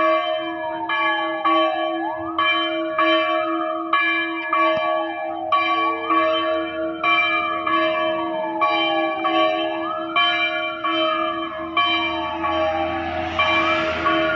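Church bell ringing in rapid, even strokes, with a siren wailing over it that rises quickly and falls slowly, about once every four seconds.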